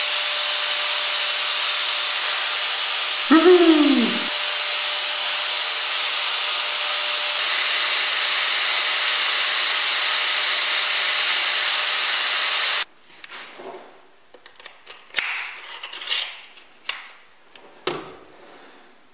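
Angle grinder fitted with a homemade belt power-file attachment running steadily, with a short vocal exclamation about three seconds in. It cuts off abruptly about 13 seconds in, followed by light clicks and knocks of the metal attachment being handled.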